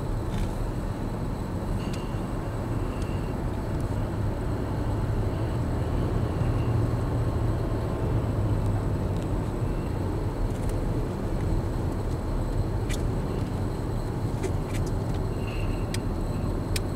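A car driving, heard from inside the cabin: steady tyre and engine noise, with a few faint clicks in the second half.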